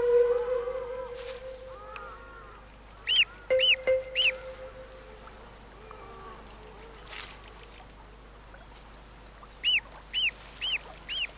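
Grey crowned crane chick peeping: short, high peeps that rise and fall, three in quick succession about three seconds in and four more near the end. A sustained low musical note is loud at the start and fades over a couple of seconds, and another note sounds about three and a half seconds in.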